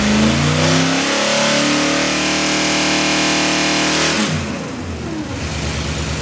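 Holden 308 V8 on an engine dyno, brought up to a steady higher speed and held there for about three seconds while its ignition timing is checked with a timing light and advanced. About four seconds in it drops quickly back to a steady idle.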